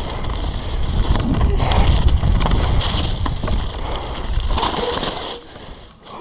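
Wind rushing over a bike-mounted action camera's microphone as a downhill mountain bike rolls fast down a gravel track, with a heavy low rumble and the rattle of tyres and bike over the loose surface. The rush eases off about five seconds in.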